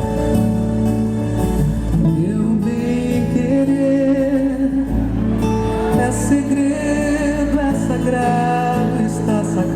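Live concert music: a voice singing over acoustic guitar.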